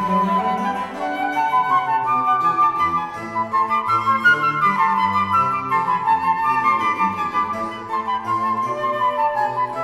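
Background music: a flute melody of held, gliding notes over a soft lower accompaniment.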